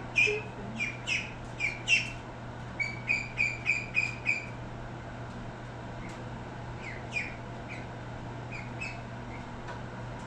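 Birds peeping: runs of short, high chirps, quick and frequent in the first half, then scattered single calls, over a steady low hum.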